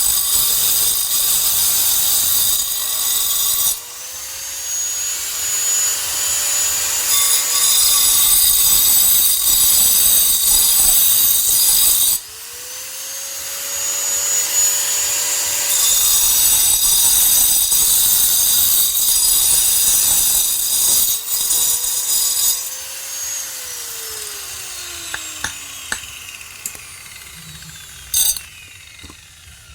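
Power tool grinding and cutting stone for a stone mortar, its motor note rising and holding as it works. The load drops suddenly twice, and about two-thirds through the motor winds down and the grinding fades, leaving a few light knocks.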